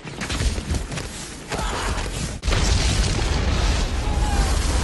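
Battle sound effects: a dense, rumbling din of explosions, with a sudden louder blast about two and a half seconds in that carries on.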